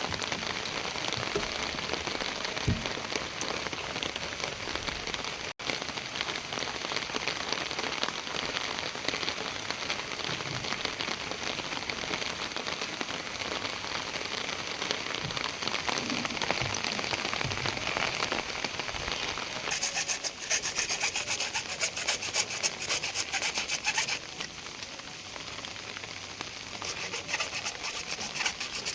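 Steady rain hiss. About two-thirds of the way in it is joined for roughly four seconds by a burst of fast, rhythmic scraping strokes, like work on a pipe.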